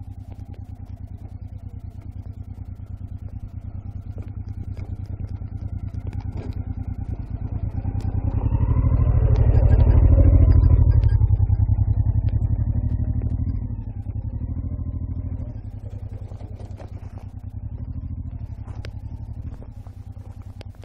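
Honda Africa Twin V-twin motorcycle engine running as the bike rides up. It is loudest close by from about eight to thirteen seconds in, then falls back to a lower rumble as the bike moves off.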